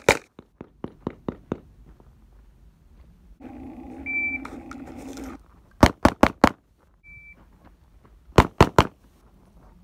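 A shot timer's short beep about four seconds in, then a handgun fired four times in rapid succession, and a second string of three quick shots about two seconds later.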